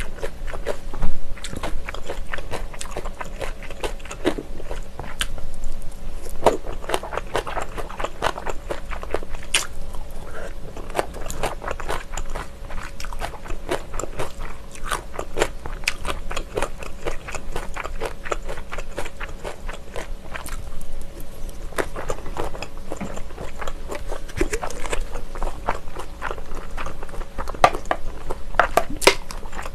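Close-miked eating of chewy Chinese glass noodles with crisp julienned vegetables: wet chewing, lip smacks and many small mouth clicks, one loud bite about a second in. Near the end, sauce squirts from a plastic squeeze bottle onto the dish.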